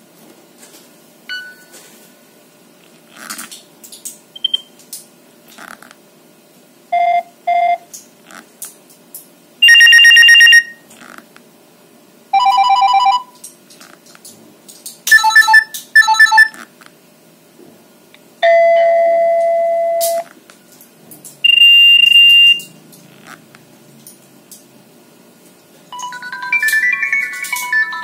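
Nokia 3230 mobile phone's speaker playing a string of short ringtone and alert-tone previews: electronic beeps, trills and phone-style rings, each a second or two long and stopping abruptly, with soft keypad clicks in the gaps. Near the end a simple melody begins.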